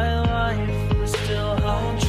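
Background music with a steady beat of about two drum hits a second, a deep bass line and a sliding lead melody.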